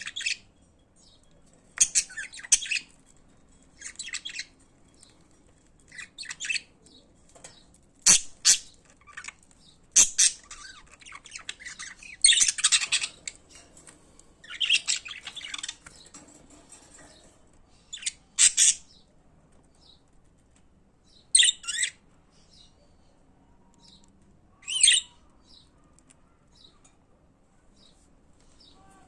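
Budgerigars chattering and warbling in short bursts of scratchy, squawky calls every second or two, with brief pauses between them.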